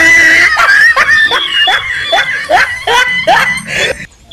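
Human laughter, a quick run of short laughs about two or three a second.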